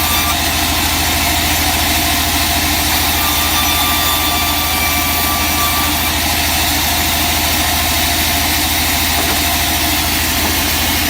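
Sawmill machinery running steadily: a loud, even engine drone with a faint high whine that comes and goes.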